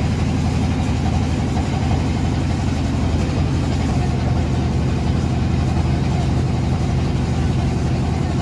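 A passenger boat's engine running steadily at an even pitch, with no change in speed.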